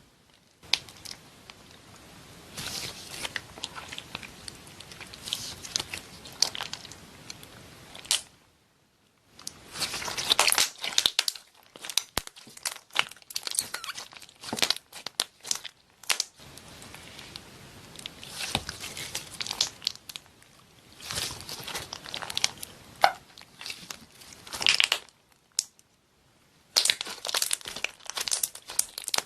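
Slime being squeezed and pressed by hand, giving irregular crackly, crunching bursts, with two short pauses.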